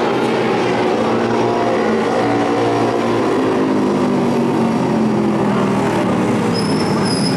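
Several vintage racing motorcycle engines running hard together on a dirt flat-track oval, their pitch rising and falling as the riders go through the turns. A high steady whine joins in near the end.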